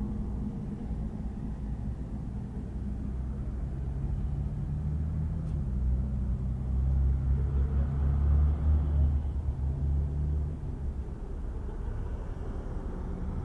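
Bus engine running nearby: a low rumble that swells from about four seconds in, is loudest for a few seconds, then drops back.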